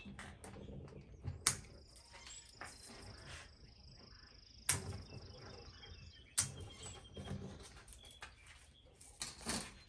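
Hand snips cutting the tails off plastic zip ties on a wire hanging basket: four sharp snips a second or more apart, with light rustling of burlap in between.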